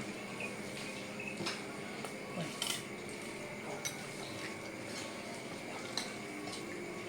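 Cutlery clinking against a plate while someone eats, a handful of light clinks at irregular intervals over a steady high hum.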